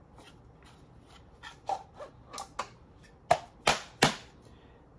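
A series of sharp plastic clicks and clacks from a prototype revolver foam dart blaster being handled: about eight of them, starting a second and a half in, the last three loudest.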